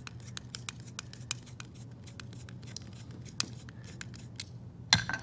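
Small metallic clicks, several a second and uneven, as the adjustment screw of a new sliding-door roller assembly is turned with a screwdriver. Near the end comes a short cluster of louder knocks as the metal bracket is handled.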